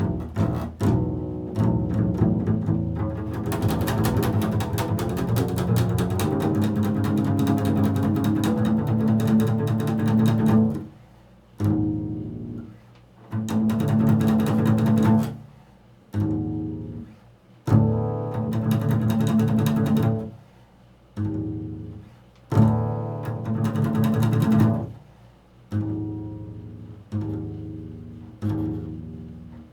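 Acoustic double bass playing improvised jazz, both bowed and plucked: one long continuous passage, then short phrases broken by brief pauses.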